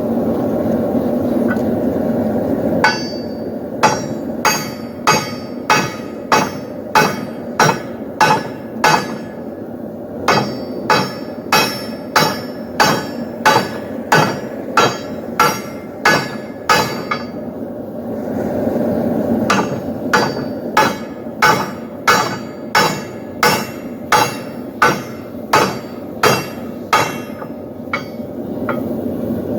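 Hand hammer striking steel on an anvil in a steady forging rhythm, about one and a half blows a second, each blow ringing briefly. The hammering comes in two runs, with a steady rushing noise in the gaps at the start and about two-thirds of the way through.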